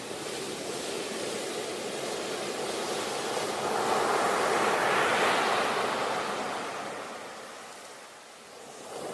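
Rushing of waves, swelling to a peak midway and ebbing away near the end.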